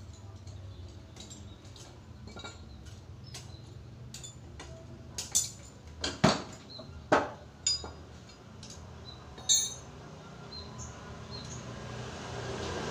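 Metal hand tools clinking against each other and against engine parts while a motorcycle engine is being dismantled: light scattered clicks, with a cluster of five louder, ringing clinks in the middle of the stretch.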